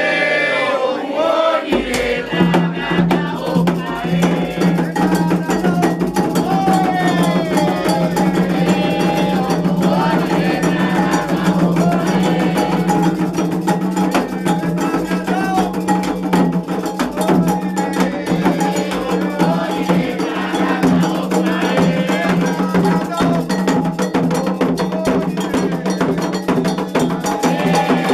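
Candomblé ritual music: an agogô iron bell beating a fast, steady pattern over drums, with voices singing a chant, all starting about two seconds in.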